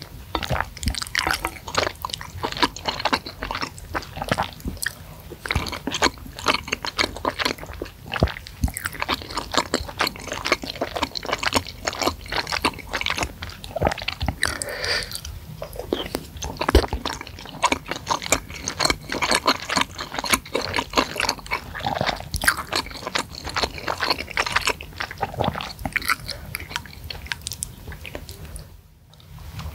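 Close-miked chewing and wet mouth sounds of a person eating spicy seblak with meatballs and saucy noodles: a dense run of small smacks and squelches, with a brief lull near the end.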